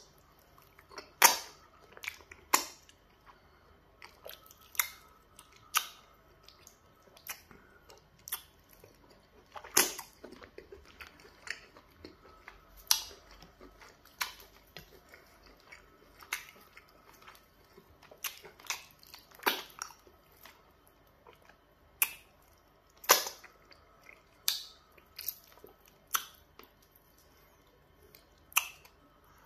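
Close-up eating sounds of a person chewing pounded yam fufu and turkey with peanut soup: irregular wet mouth smacks and clicks, one every second or two.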